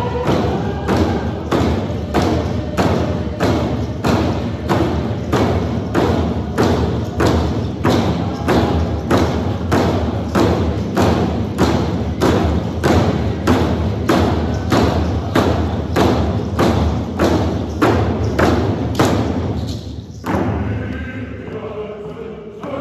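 A group of hand drums beaten together in a steady beat of about two strokes a second, with voices singing a prayer song under the drumming. The drumming stops about twenty seconds in, leaving the voices.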